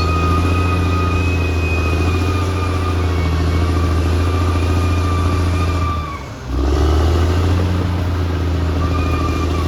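Caterpillar D6R XL bulldozer's diesel engine running steadily under load, a low heavy drone with a high, slowly falling whine over it. About six seconds in the sound drops away for half a second, then the engine and whine come back.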